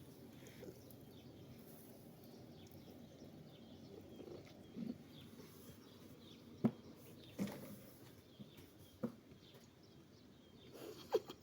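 Faint outdoor ambience coming in through an open window, with a few short sharp clicks or knocks in the second half: three spaced a second or so apart, and two close together near the end.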